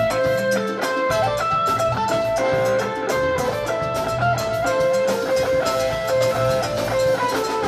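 Live band playing: an electric guitar lead of long held notes over a drum kit and percussion keeping a steady beat.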